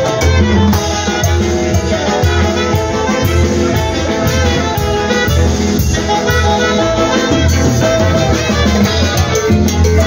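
A Latin dance band playing live: saxophones over timbales, drum kit and electric bass keeping a steady dance beat.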